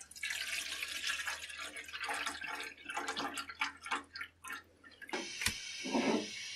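Water poured from a plastic jug into a small camping kettle, splashing and gurgling for about five seconds. Then the pouring stops, a sharp click follows and a steady hiss runs on near the end.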